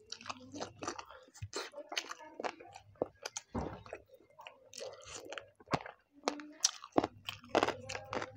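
A person chewing a mouthful of chicken biryani right at a clip-on microphone, giving wet mouth sounds with irregular sharp clicks, several a second.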